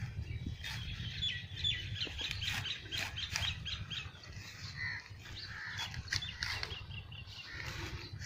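Small birds chirping in quick runs of short high notes, about five a second, over a steady low rumble. Several sharp strokes of a hand sickle cutting through green crop stalks are heard between them.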